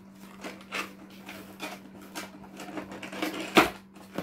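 Cardboard headphone box and its clear plastic tray being handled and pulled apart: a run of scraping, rustling scratches with one sharp, loud snap about three and a half seconds in. A steady low hum runs underneath.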